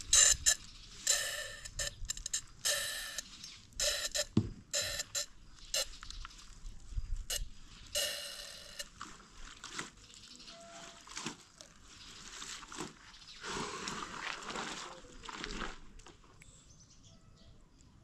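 Laundry being hand-washed in a plastic basin of water: a string of short rubbing and splashing sounds as wet cloth is scrubbed and squeezed, with a longer stretch of sloshing a few seconds before the end.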